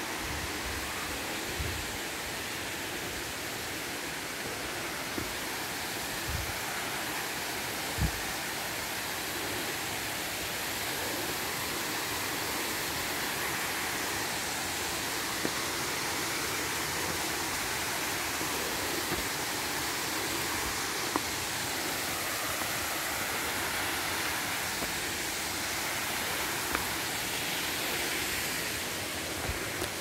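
Steady rushing of a waterfall and its mountain stream, with a few brief knocks over it.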